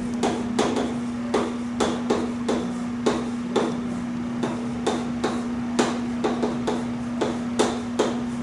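Chalk tapping and scraping on a chalkboard as words are written, a sharp irregular tick with each stroke, about three a second, over a steady low hum.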